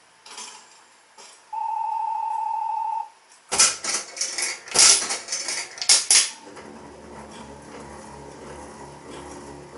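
Slot machine's electronic beep held for about a second and a half, then a loud metallic clatter of coins lasting a couple of seconds, then the reels spinning with a low, even hum.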